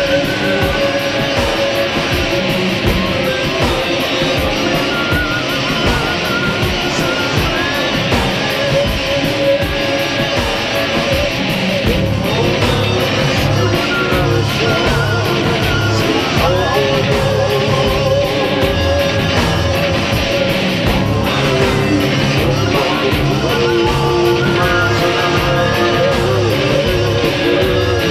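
Instrumental passage of heavy, psychedelic space-rock: guitars holding sustained notes over bass and a steady beat, with no vocals. The low end grows heavier about halfway through.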